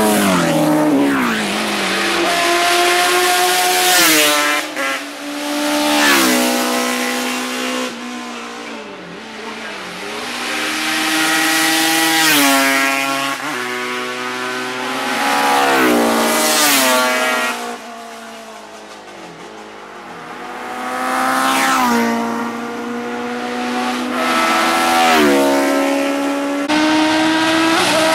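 Racing motorcycles passing one after another at speed on a road circuit. Each engine climbs in pitch through the gears, then drops in pitch as it goes past, with a brief lull a little past the middle before the next bikes arrive.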